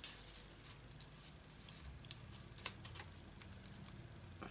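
Paper and card being handled on a tabletop: faint rustling with a few light clicks and taps.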